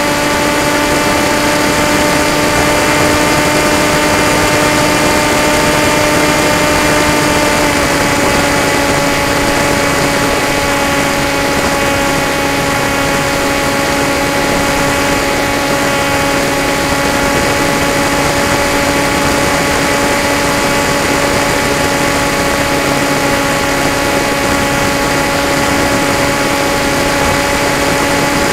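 Electric motor and propeller of an FPV model aircraft, heard from its onboard camera: a steady whine over rushing air noise, dropping slightly in pitch about eight seconds in as the throttle eases.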